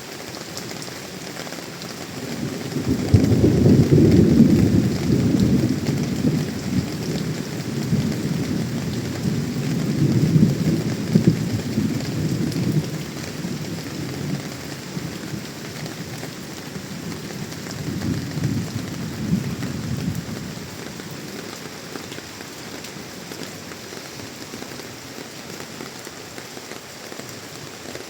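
Monsoon rain falling steadily, with rolling thunder rumbling low three times: loudest a few seconds in, again mid-way, and more weakly later before dying away.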